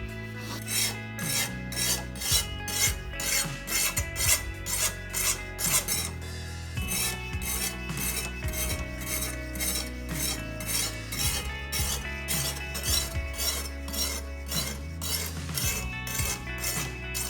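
Sharpening stone of a Ruixin Pro guided sharpening system rasping along a kitchen knife's edge in quick repeated strokes, about three a second, with a short pause about six seconds in. Background music plays underneath.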